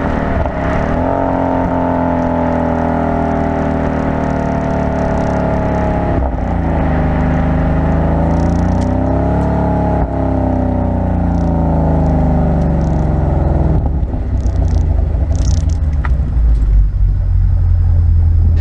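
Ford 5.0 V8 of a 2015 Mustang GT running through a Corsa Sport catback exhaust while driving, heard from outside the car. The exhaust note sags, picks up again around the middle, then falls away. About three-quarters of the way in, the engine note fades and road and wind noise with a low rumble takes over.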